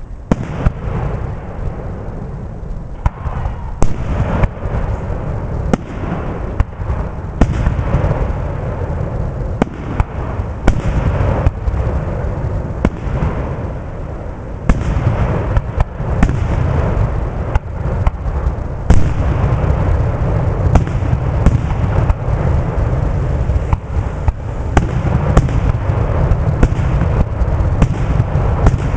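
Fireworks display: aerial shells bursting one after another at irregular intervals, sharp bangs over a continuous low rumble. The bursts come thicker and louder in the second half, with the loudest bang a little past the middle.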